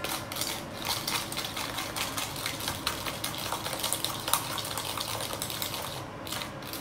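Dipping sauce being stirred in a bowl, a utensil clicking rapidly against the sides as the sugar and seasoning dissolve, with a brief pause near the end.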